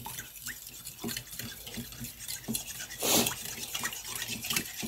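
Metal spoon stirring a thick soy and oyster sauce mixture in a ceramic bowl: wet sloshing with small clicks of the spoon against the bowl, and one louder stroke about three seconds in.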